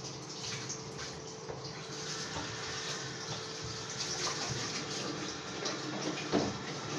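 Liquid running in a steady stream into a container.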